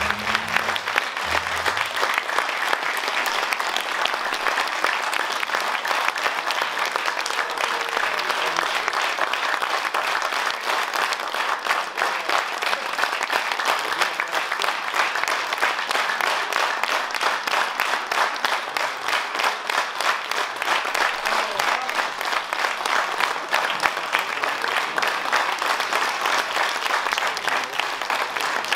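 Audience applauding steadily, a dense patter of many hands clapping, with closing music fading out within the first second or two.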